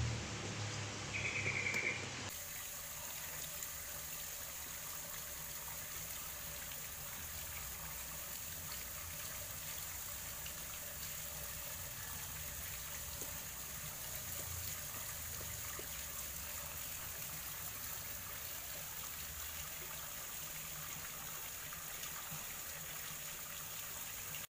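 Steady trickle of running water at a koi pond.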